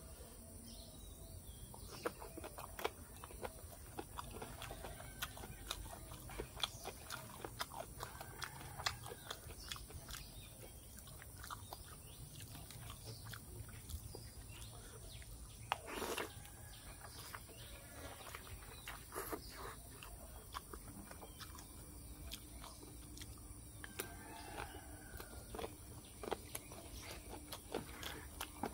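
Close-up eating sounds: wet chewing and lip smacking on rice noodles and pig ear, with irregular small clicks of a spoon and fork in the food.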